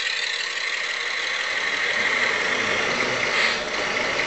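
Radio-controlled scale model vehicle running, heard from on board: a steady high motor whine with noise above it, swelling briefly about three and a half seconds in.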